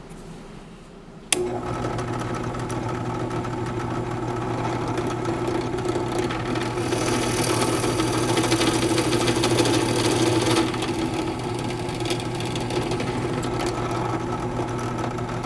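Benchtop drill press motor running with a steady hum, starting abruptly about a second in. A twist bit cuts into a clamped block of wood, adding a louder, noisier cutting sound from about seven to ten seconds in. The sound cuts off suddenly at the end.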